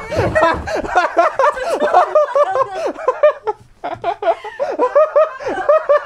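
A woman laughing hard in quick repeated bursts, with a brief pause about three and a half seconds in.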